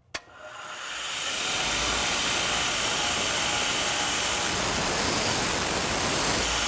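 Power grinder switched on with a click, its motor winding up to speed over a second or so and then running steadily, ready to chamfer the sharp-cornered striking end of a farrier's steel pritchel.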